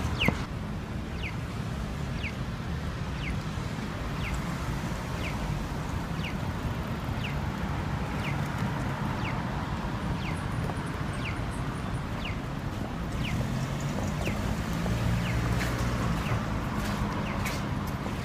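City street noise from passing traffic, with a short high chirp repeating about once a second and a sharp click near the start.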